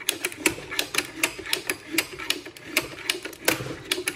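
Schneider breaker motor mechanism's manual charging handle being pumped, its ratchet clicking fast and fairly evenly, about four or five clicks a second, as it winds up the stored-energy closing spring. The handle takes about six or seven strokes to charge the spring, after which the breaker can be switched on again.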